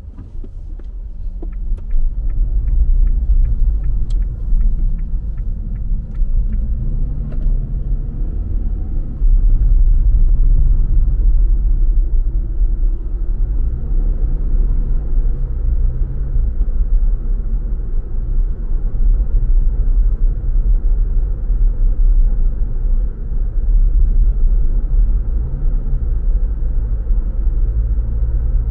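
Car driving: a heavy low rumble of engine and road, growing louder over the first couple of seconds as it picks up speed, with the engine note rising and falling several times. A run of light, regular ticks sounds during the first several seconds.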